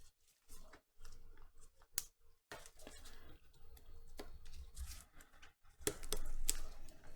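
Double-sided adhesive tape being cut and handled: a series of sharp snips and short crackles, loudest about six seconds in.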